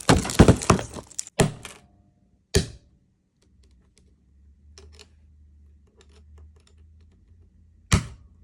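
Small plastic LEGO pieces clattering and clicking as they are handled and pressed together: a quick run of clicks at the start, then a few sharp single clicks with faint small ticks between them.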